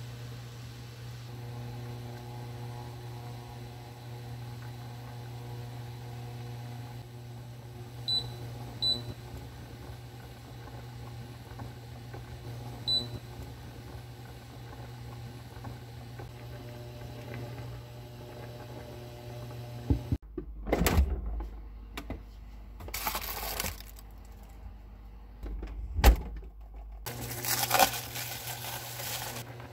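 Pot of kimchi soup boiling on an induction cooktop over the hob's steady hum, with the touch controls beeping twice about eight seconds in and once more near thirteen seconds. From about twenty seconds in, a plastic bag crinkles as it is pulled off dough in a glass bowl, with one sharp knock partway through.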